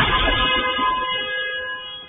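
Car collision: the loud crunching noise of the impact fading away, with a steady buzzing tone held over it.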